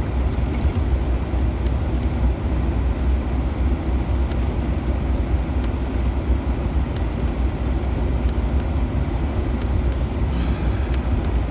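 Cab of a 2011 Ford Ranger pickup while driving, with a steady low engine and road rumble.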